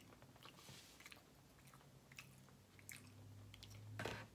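A person chewing food with quiet mouth sounds, soft wet clicks and smacks, and a brief louder noisy sound near the end.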